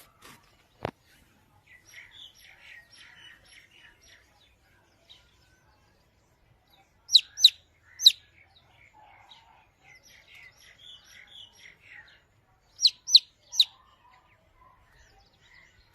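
Baby chicks peeping: two groups of three loud, high, sharp peeps, about 7 and 13 seconds in, over softer scattered cheeping.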